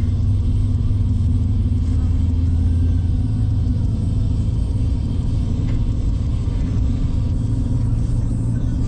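Steady low rumble of a Dodge Ram 1500 pickup driving on a snow-covered road, heard from inside the cab: engine and tyre noise at an even pace.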